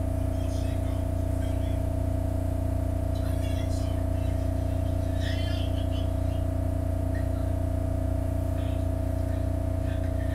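Steady low hum of a SEPTA Market-Frankford Line subway-elevated car standing still at a station, its onboard equipment running, with two steady tones over the hum, heard from inside the car.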